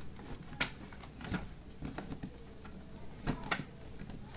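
Handling of plastic wire connectors and cables on an LED TV's main board as they are worked loose: a handful of light clicks and rattles, the sharpest about half a second in.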